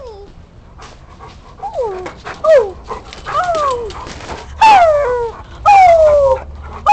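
Dog whining at the fence: a string of about six high calls, each sliding down in pitch, starting about a second and a half in and loudest near the end.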